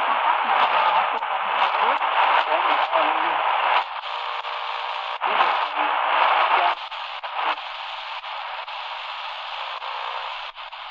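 XHDATA D-328 portable radio's speaker playing shortwave reception in the 9.2 to 10 MHz band. A station's voice comes through static for about four seconds, then fades into hiss and crackle, with a short return of signal partway through as the dial is tuned.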